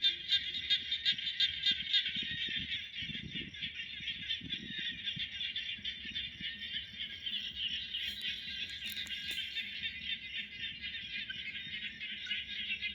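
Steady outdoor chorus of calling insects: a high, finely pulsing buzz that holds on without a break, over faint low rumbling.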